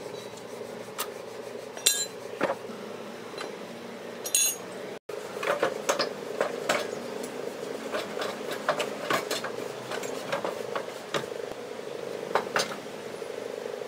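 Irregular metal clinks and knocks as a stripped Suzuki 800cc three-cylinder engine block and loose engine parts and tools are handled and shifted, over a steady hum.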